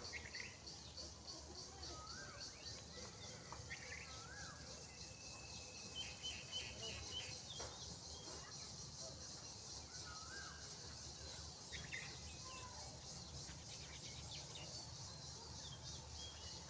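Small birds chirping now and then, short rising and falling notes, over a steady fast-pulsing high buzz of insects and a low outdoor rumble.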